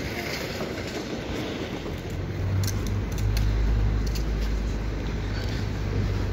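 City street noise, with a low steady engine rumble coming in about two seconds in and holding on.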